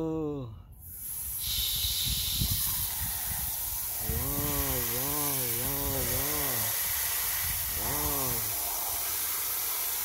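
Garden-hose pistol-grip spray nozzle jetting water onto a muddy toy truck: a steady hiss of spray that starts about a second in, with water washing over the mud.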